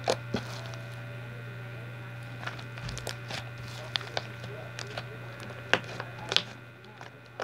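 Hands kneading and folding glitter slime, giving scattered sharp clicks and pops at irregular moments over a steady low hum.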